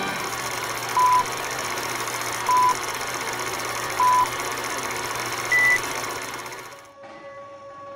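Film countdown leader sound effect: a steady rattling film-projector clatter with a short beep on each count, three beeps at one pitch about a second and a half apart and a fourth, higher beep. The clatter fades away near the end.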